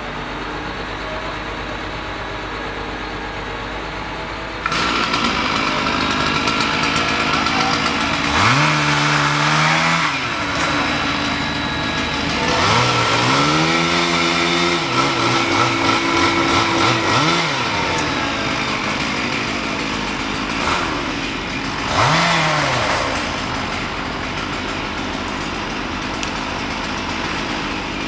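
A crane truck's engine runs steadily. About five seconds in, a chainsaw starts abruptly and idles, then is revved up and down several times, held at speed for a few seconds in the middle.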